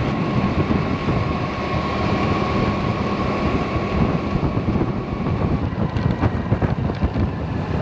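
Wind rushing over the microphone while riding a Kymco Carry 125cc scooter, its engine running steadily under the wind noise with a thin steady whine. A couple of short clicks come about six seconds in.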